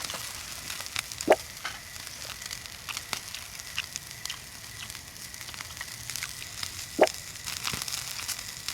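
Beef sizzling as it grills over a wood fire, a steady hiss scattered with small pops and crackles, with a louder pop about a second in and another about seven seconds in.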